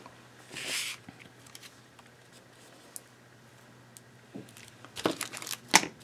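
Paper and foam adhesive tape being handled: a short rustle about half a second in, then a few quick tearing rips near the end, the last one the loudest, as tape is pulled and torn from the roll.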